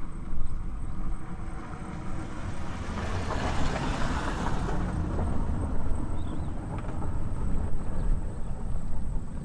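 Wind buffeting the microphone outdoors: a steady low rumble, with a louder rushing swell about three to five seconds in.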